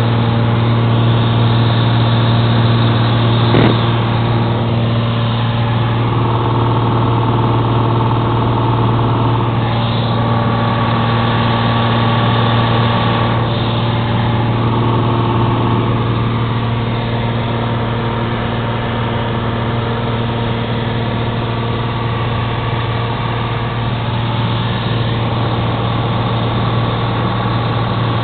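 Light single-engine propeller plane's engine and propeller droning steadily, heard from inside the cabin. A brief click about three and a half seconds in.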